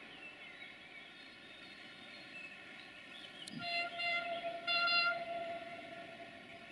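A diesel railcar's horn sounding two short blasts about a second apart, the second one louder, over a lower note that trails on briefly after them.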